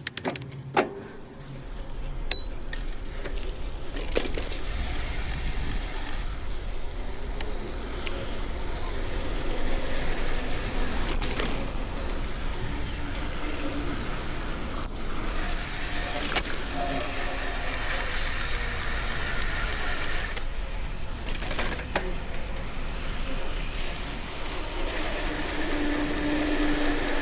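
Wind rumbling on the microphone and the noise of a bicycle rolling along, steady after a few sharp clicks in the first couple of seconds.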